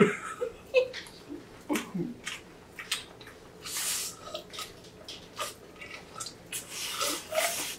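Close-miked eating sounds: wet chewing and smacking of spicy cold noodles, with many small clicks and two longer slurps of noodles, one about four seconds in and one near the end.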